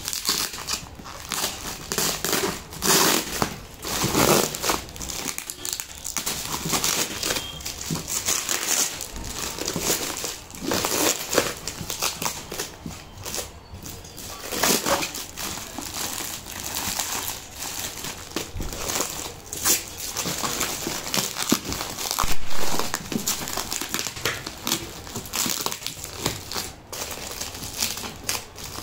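Plastic parcel wrapping and packing tape crinkling and tearing in irregular rustles and crackles as a parcel is unwrapped by hand, with a knife slitting the tape along the cardboard box.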